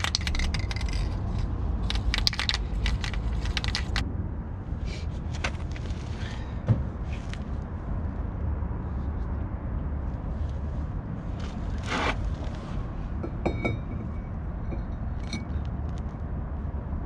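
A nearly empty aerosol can of copper spray sputtering in short hissing bursts for the first few seconds, then scattered metal clinks and scrapes of brake parts and tools being handled, with one brief squeak.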